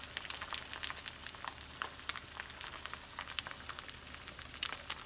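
Eggs and egg whites frying in butter in a stainless steel skillet: a steady sizzle dotted with many small crackling pops.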